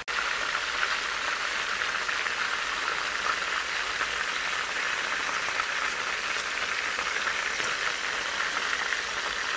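Marinated chicken pieces sizzling steadily in hot oil in a frying pan as they brown, a dense crackling hiss.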